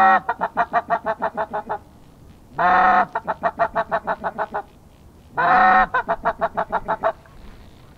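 Goose calls repeated three times, each a long honk rising in pitch followed by a quick run of short clipped notes, about eight a second, for a second and a half.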